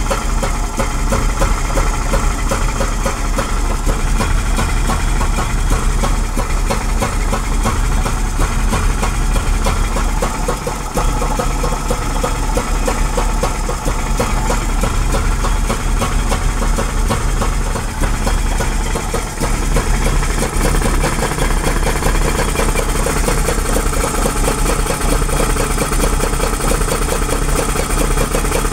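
Combustion engine idling steadily.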